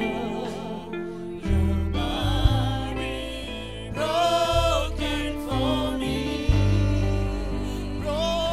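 Gospel worship song sung live by a group of singers on microphones, with sustained chords and a deep bass line underneath; the voices waver with vibrato.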